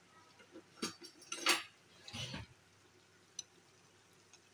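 Slotted metal spoon clattering and scraping against the wok three times while turning pakoras in hot oil, the middle one loudest. Faint ticks of the frying oil popping follow near the end.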